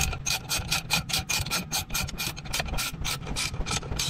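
Ratchet wrench clicking quickly, about seven or eight clicks a second, as it winds the screw of a valve-spring compressor up off a newly fitted valve spring and retainer on a Sea-Doo Rotax cylinder head.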